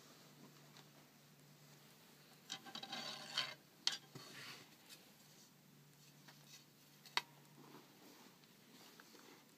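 Handling noise of hands and a sleeve moving right next to the camera: a burst of rubbing and rustling a little over two seconds in, then a few sharp clicks, the loudest about four and seven seconds in.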